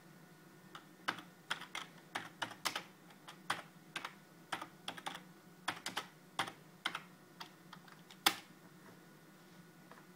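Typing on a computer keyboard: an irregular run of key clicks lasting several seconds, ending with one louder keystroke about eight seconds in.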